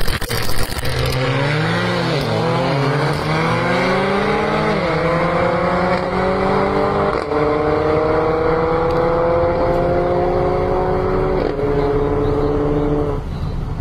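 Two Mercedes-AMG A45s' turbocharged four-cylinder engines at full throttle from a standing start. The pitch climbs and drops back through several upshifts as the cars accelerate away, and cuts off about a second before the end.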